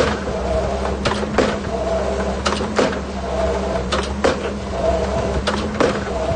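Excavator running steadily, with pairs of sharp knocks repeating about every one and a half seconds as it drives piles.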